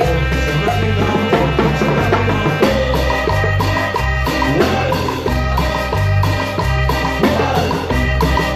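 Latin dance music in a salsa style played by a band: a repeating bass line, percussion and sustained melodic notes, loud and steady.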